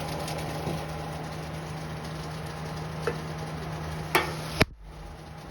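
Steady background hum and hiss of room tone, with a few faint clicks and a sharper click a little over four and a half seconds in, after which the background noise drops away.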